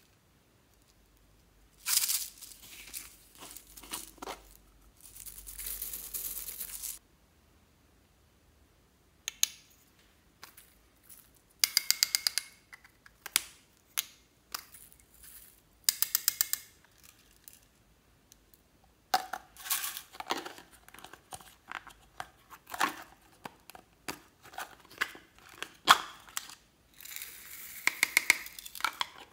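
Small plastic containers of sequins and beads being handled over a glass dish: lids and caps clicking open, dry rattles of sequins and beads, and short pours, each lasting a second or two with quiet gaps between.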